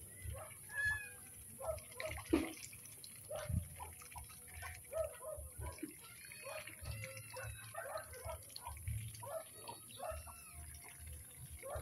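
A flock of domestic ducks feeding together in wet mud: a busy run of short, soft quacks and chattering calls, several a second, over wet dabbling and dripping sounds from their bills.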